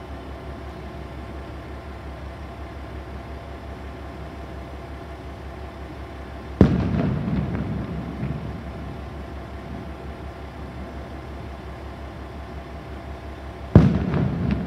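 KiHa 40 diesel railcar idling with a steady low throb, broken twice by a sudden loud bang that dies away over a second or so, about halfway through and again near the end.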